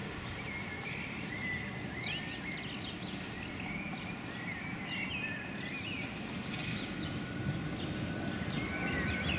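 Small birds chirping repeatedly over a steady low rumble of a tram approaching on the tracks, which grows slightly louder toward the end.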